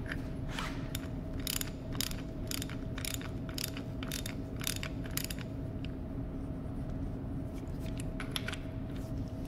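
Socket ratchet wrench clicking in a steady run of about two to three clicks a second as an inch-and-an-eighth fitting is worked off a diesel fuel injection pump body.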